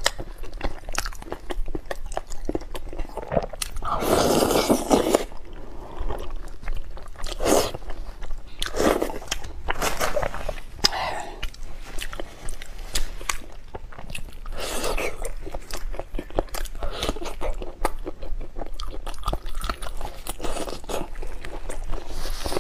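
Close-miked eating sounds: crunchy biting and chewing of beef knee-joint cartilage in chili oil, a dense, irregular run of crunches and mouth clicks with a louder crunching stretch about four seconds in. The audio is played at double speed.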